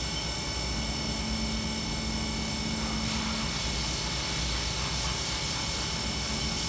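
Haas VF2SS vertical machining center's spindle running steadily at about 4,000 RPM without cutting, a steady whine made of several high tones over a low hum. This is a spindle speed test.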